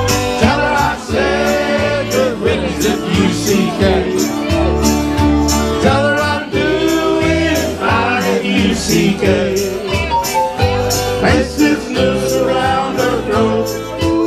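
Live band playing an upbeat country-style song, with sung vocals over a steady beat.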